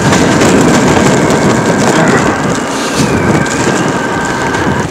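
Blizzard wind buffeting the camera microphone: a loud, dense rushing noise with crackling through it and a thin steady whine above.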